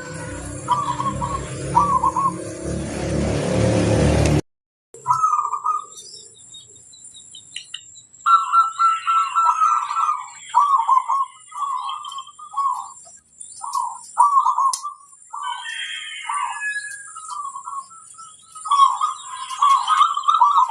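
Zebra doves (perkutut) cooing in repeated short phrases, with scattered higher chirps of other birds. For the first few seconds the cooing sits under a noisier recording with a low rumble, which cuts off about four seconds in.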